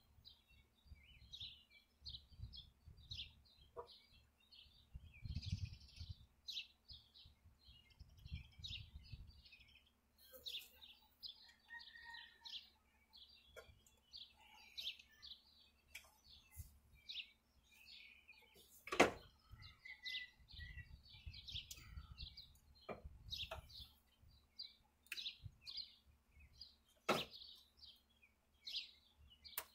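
Songbirds chirping and twittering throughout, with bouts of low wind rumble on the microphone. A couple of sharp knocks cut through, the loudest about nineteen seconds in and another near the end.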